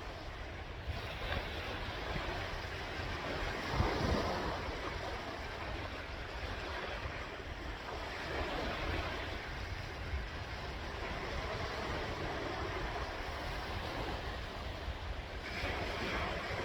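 Sea waves washing in as a continuous wash that swells and eases, the biggest surge a little before four seconds in. Wind buffets the microphone with a low rumble.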